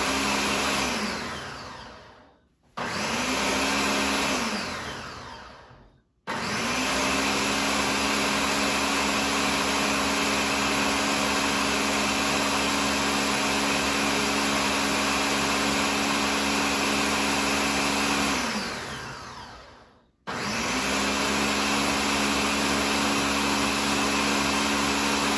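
Ninja blender running its automatic blending program in bursts. Each run starts abruptly and spins down over a second or two: a short burst at the start, another of about two seconds, a long run of about twelve seconds, then a fresh run near the end.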